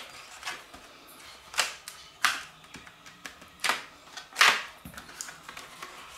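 Glossy printed paper chip bag being pressed flat and bent by hand on a tabletop: about five sharp paper crackles, the loudest about four and a half seconds in.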